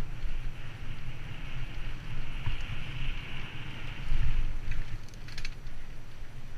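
Wind buffeting a helmet-mounted camera's microphone on a fast mountain-bike descent, over the rumble of the tyres on a dirt singletrack. A steady hiss runs through the middle, and a few short rattles come near the end.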